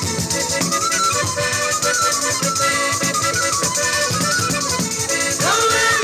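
Live southern Italian folk music: a tamburello frame drum with jingles beats a fast, driving rhythm under a gliding melody line, with acoustic guitar.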